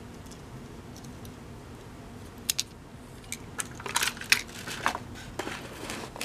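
Light clicks, taps and scrapes as a fishing lure with treble hooks is laid into an old cardboard lure box and the lid is fitted on, starting about two and a half seconds in. A faint low hum runs underneath.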